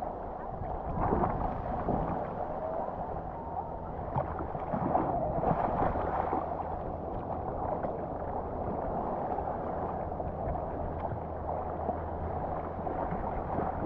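Steady, muffled wash of sloshing water heard through a helmet-mounted GoPro Hero8.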